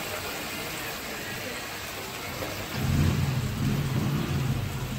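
Hot oil sizzling steadily in a steel kadai on a gas stove. About three seconds in, a louder low engine hum joins it and drowns out the sizzle.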